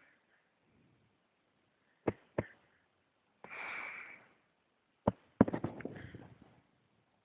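Snoring: two short clicks, then a rasping breath, then a rougher, rattling snort a couple of seconds later.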